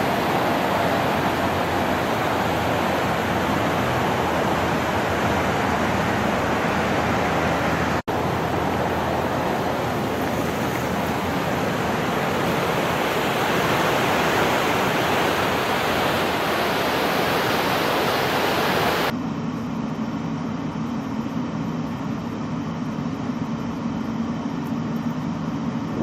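Snowstorm wind blowing hard, a steady rushing noise with no voice or engine tone in it. About three-quarters of the way through it cuts abruptly to a lower, duller rumble.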